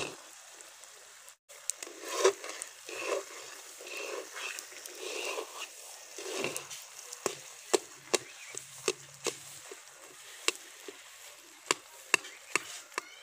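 Steel spoon stirring and scraping thick semolina halwa in a metal karahi, giving irregular sharp clicks and knocks as it strikes the pan, with some scraping over a faint hiss. The spoon is working loose caramelised sugar that sticks to the pan.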